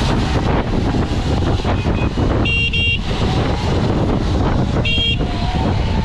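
Heavy wind and road rush while riding, with a horn beeping two short times about two and a half seconds in and once more about five seconds in.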